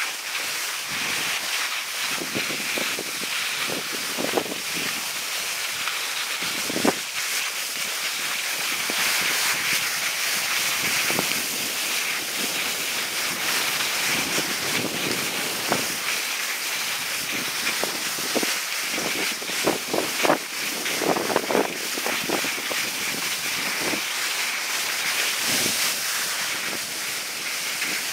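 Skis hissing over groomed snow, with wind rushing across the microphone of a moving skier. Brief louder scrapes come now and then.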